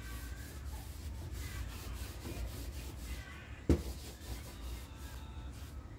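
A disinfecting wipe rubbing across a bathroom sink counter in steady strokes, with one sharp knock a little past halfway.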